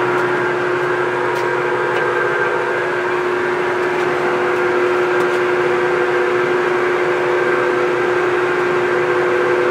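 Acra engine lathe running steadily at about 230 RPM with the power feed engaged: an even mechanical whir from the headstock gearing and feed drive, carrying a couple of steady tones.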